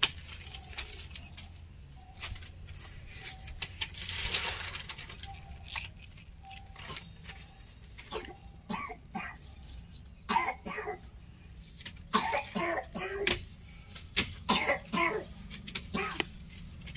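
Hands working soil and pressing plant cuttings into a plastic-lined tray, with scattered small clicks and rustles of soil and plastic. In the second half a person coughs and makes short vocal sounds several times; these are the loudest sounds.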